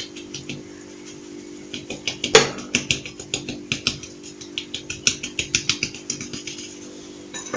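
Batter being mixed by hand in a bowl: a utensil clicks and taps quickly and unevenly against the bowl's side, about five or six times a second, with a louder knock about two seconds in, over a steady low hum.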